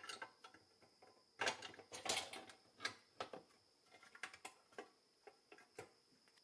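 Small clicks and knocks of a pressed-steel toy snow plow blade being handled and fitted onto the front of a toy dump truck, with a denser run of metal clatter about a second and a half in.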